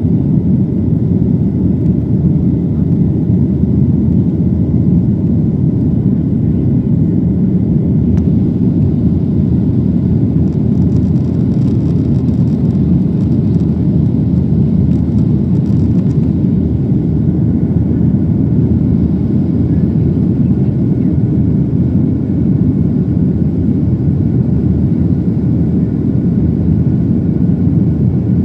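Steady, loud cabin rumble of a Boeing 737-900 airliner, the sound of its CFM56-7B turbofan engines and rushing airflow heard from inside the passenger cabin. It holds even with no change in pitch or level, with a few faint steady tones above the deep rumble.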